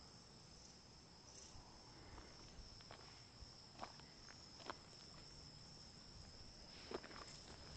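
Faint, steady, high-pitched insect song, like field crickets, with a few short soft clicks about halfway through and near the end.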